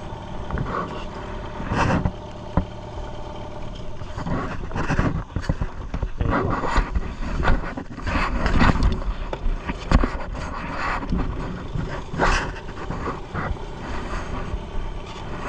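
Motorboat engine running steadily, with irregular louder bursts of noise over it.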